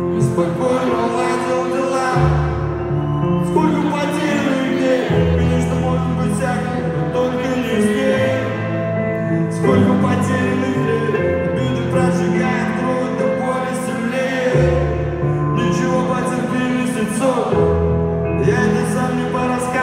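Live pop concert music over a large hall's sound system, picked up on a phone: held keyboard chords over a bass line that changes every two or three seconds, with singing over the top.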